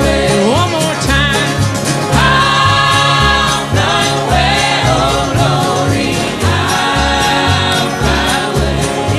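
Live acoustic country music: singers in harmony over strummed acoustic guitars, with a steady bass beat.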